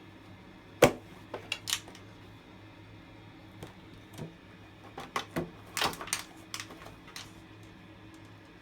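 Toilet paper holder knocking and clattering irregularly as a kitten works at it, trying to pull the paper out through its slot. The sharpest knock comes about a second in, with a cluster of clacks around five to seven seconds.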